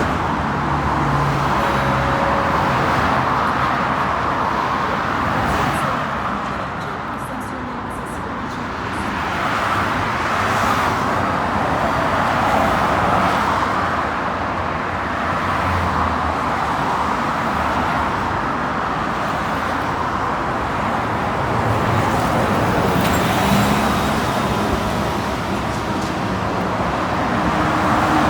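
Steady road traffic: cars running past on a street, easing off briefly about seven seconds in.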